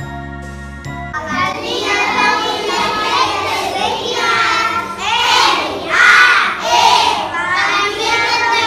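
A moment of recorded instrumental music, then from about a second in a group of young children singing together loudly.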